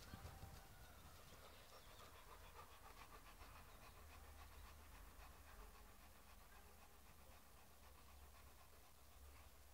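Dog panting faintly.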